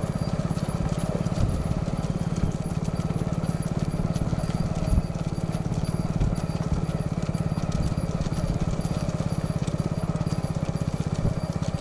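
Motorcycle engines running at low speed, a rapid even chugging with a steady low hum, with a few louder knocks along the way.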